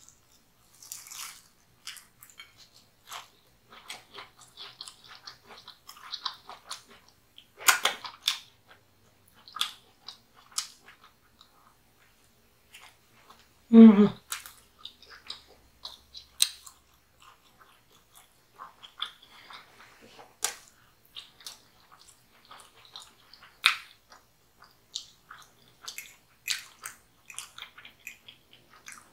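Close-up eating sounds: bites and chewing of a crisp, panko-breaded fried chicken drumstick, full of small crunchy crackles, with a louder crunch about 8 seconds in. A short hum-like voice sound falls in pitch about halfway through.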